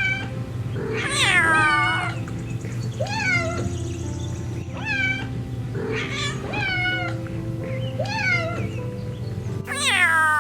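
Domestic cat meowing over and over, one meow every second or two, over background music.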